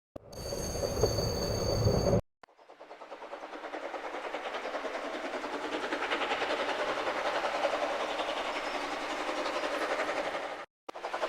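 Train sound effects: a loud burst about two seconds long with a steady high tone, cut off sharply. Then a train running with an even, quick rhythmic pulse, which stops suddenly near the end and starts again.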